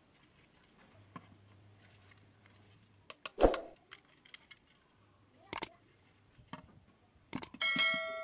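Galvanized light-steel hollow section being handled and knocked against a steel plate: a few sharp clanks, the loudest about three and a half seconds in. Near the end comes a quick run of knocks with a metallic ring that dies away.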